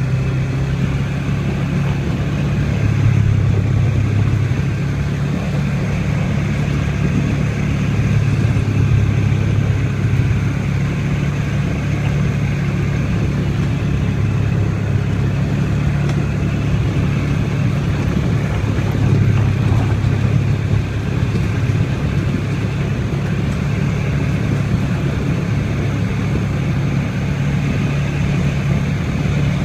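An ATV engine running steadily under way, a constant low drone with small swells in loudness.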